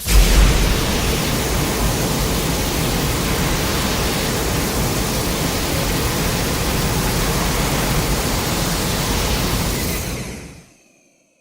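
Steady rushing noise with a heavy low rumble, a sound effect from a Godzilla sound collection, starting abruptly and fading out about ten seconds in.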